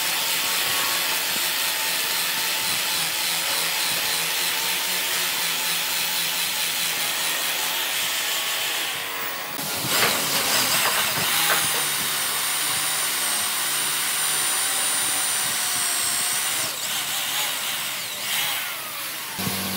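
Power tools working wood: a steady motor sound with the noise of wood being cut or shaped. The sound changes abruptly about halfway through and again near the end, and a thin high whine comes in for a few seconds in the second half.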